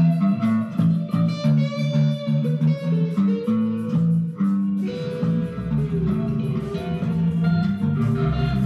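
Instrumental rock jam on electric guitar and electric bass: the bass plays a repeating line of notes while the guitar plays above it. About five seconds in, the bass drops lower and the sound thickens.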